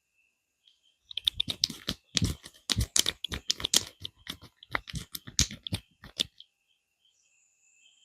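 Hands slapping and tapping on a head in quick, irregular strokes, as in a percussive head massage, for about five seconds, starting about a second in.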